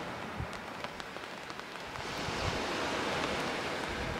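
Rain falling with small waves washing onto a pebble beach: a steady hiss with faint raindrop ticks, swelling about halfway through as a wave comes in.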